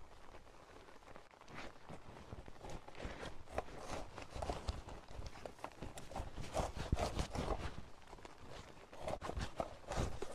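Footsteps and scuffs on rough ground, an irregular run of short knocks that grows busier from about three seconds in.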